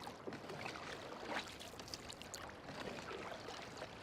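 Faint water sounds from a canoe being paddled: small irregular splashes and drips of the paddle in the water.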